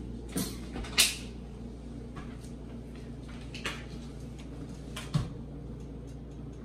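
Scattered knocks and clicks of kitchen handling, such as cupboard doors and pots being moved, the loudest about a second in and two close together near the end, over a steady low hum.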